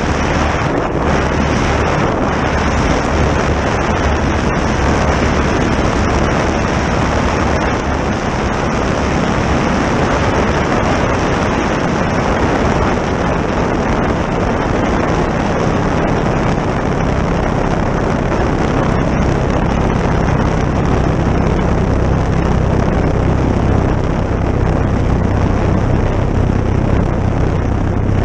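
Two-cylinder opposed engine of a Legal Eagle ultralight running steadily with its propeller, heard close up under heavy wind noise on the microphone. The low engine note grows stronger about halfway through.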